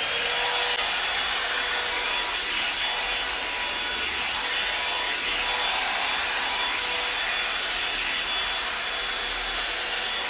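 Revlon One-Step hot air brush dryer running: a steady rush of blown air with a faint high whine.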